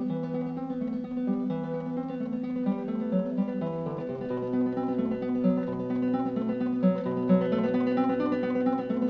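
Background music: plucked acoustic guitar playing a steady run of notes.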